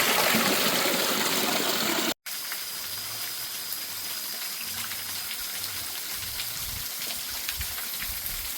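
Rushing water of a mountain waterfall, a steady loud hiss. About two seconds in, it cuts out for an instant and comes back much quieter as a steady flowing-water hiss.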